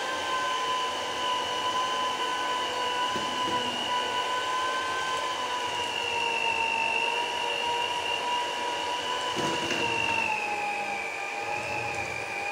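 Philips electric hand mixer running, its motor whining steadily as the beaters work through thick chocolate cake batter in a plastic bowl. The whine dips slightly in pitch near the end, and there are a couple of low knocks along the way.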